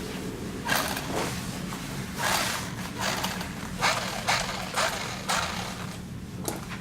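Irregular plastic clacks and knocks, about one or two a second, from a 3D-printed omni-wheel robot, over a low steady hum.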